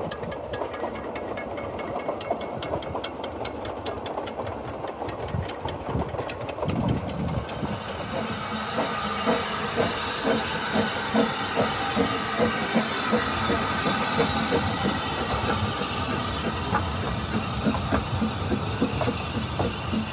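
Narrow-gauge steam locomotive working a train. At first there is steam hiss with light rail clatter. From about eight seconds in, the hiss grows and the exhaust beats come through at about two chuffs a second.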